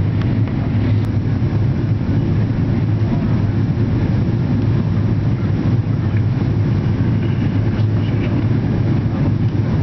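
Cabin noise inside a Boeing 777 airliner on its landing approach: the engines and airflow make a loud, steady low drone with a strong deep hum.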